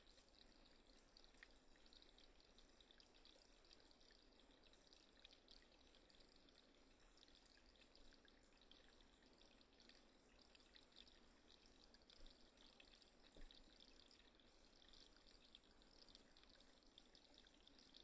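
Faint, steady trickle of running water.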